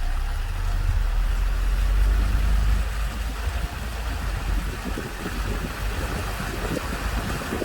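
Subaru Forester driving on a dirt trail, engine and tyre noise heard from inside the cabin. A strong low rumble eases about three seconds in, leaving a rougher, uneven crackle of tyres over the trail surface.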